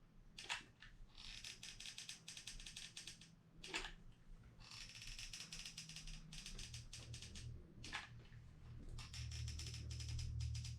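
Hot glue gun trigger being squeezed in bursts, its feed mechanism giving runs of fine rapid clicking as glue is laid onto foamboard, with a few sharper clicks. A low steady hum comes in about two-thirds of the way through.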